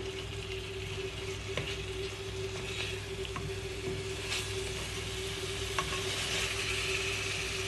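Frozen kebab pieces frying in oil and tomato masala in a pot, sizzling steadily, with a few light taps of the spatula against the pan. A steady hum runs underneath.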